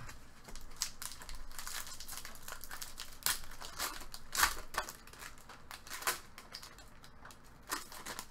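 Wrapper of a 2016-17 SPX hockey card pack crinkling and tearing as it is opened, with irregular sharp crackles, and the cards sliding against each other as they are taken out and handled.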